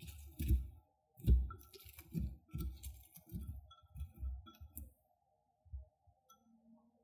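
Chopsticks tossing shredded cabbage in a bowl: rustling strokes, about two a second, with clicks and knocks of the chopsticks against the bowl, dying away about five seconds in.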